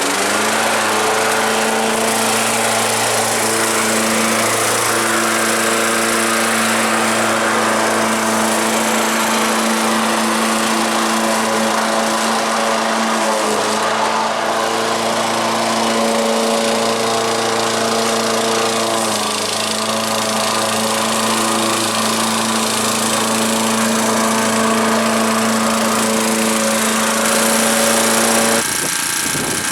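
1987 Honda lawnmower's engine running steadily at high throttle while mowing, with a slight dip in pitch about two-thirds of the way through. The engine note cuts off about a second before the end, giving way to a rougher rattling noise.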